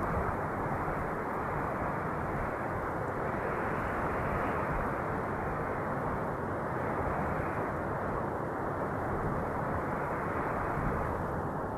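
Steady wind noise, a low rushing that swells and eases gently.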